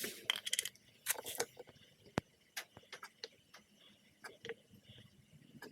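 Scattered light clicks and taps of hand work, with one sharper click about two seconds in.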